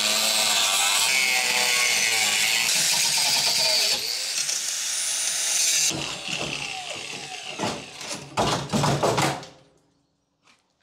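Angle grinder with a cut-off wheel cutting through rusted sheet steel of a car's shock tower, a steady high-pitched grinding hiss. About six seconds in the grinder winds down, and several knocks and clanks of metal follow as the cut-out piece is worked free.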